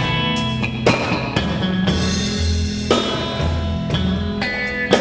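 Live gospel band playing an instrumental passage between sung lines: electric guitars and bass guitar sustaining chords over a drum kit keeping a steady beat of about one hit a second.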